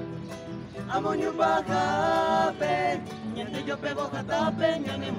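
A harp and an acoustic guitar accompany a vocal group singing in harmony. The voices come in about a second in on long held notes and drop out near the three-second mark, leaving quick plucked notes on the strings.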